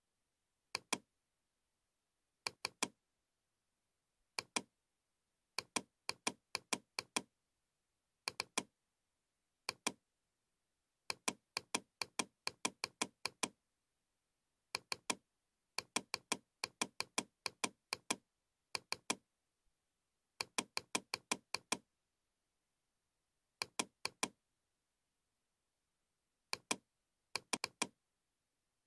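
Computer mouse clicks in quick runs of two to six, separated by pauses of a second or two, as spline control points are placed one after another. Between the runs there is dead silence.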